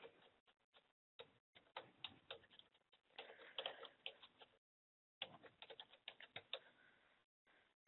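Faint computer keyboard typing: quick runs of keystrokes with a brief pause a little past the middle.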